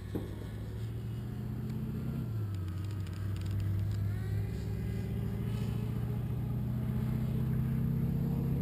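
An engine running steadily and slowly growing louder, its pitch stepping down a little about two seconds in.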